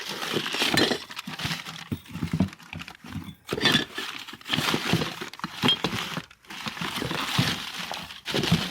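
Hard objects clattering and clinking together in stretches of a second or two, with short breaks between them.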